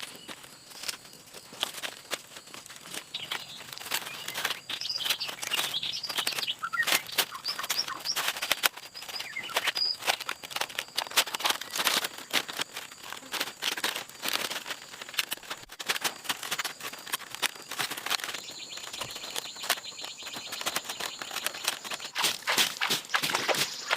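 Birds chirping in short calls over steady high-pitched tones and constant sharp clicking and crackling.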